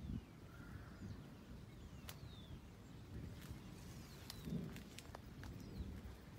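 Field ambience: small birds give short falling chirps now and then over a low, uneven wind rumble on the microphone. Several sharp ticks come in the middle, the loudest about four and a half seconds in.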